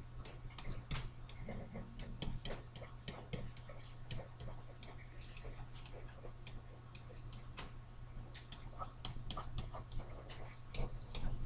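Stylus tapping and scratching on a tablet while handwriting, heard as irregular quick clicks a few times a second. A steady low electrical hum runs underneath.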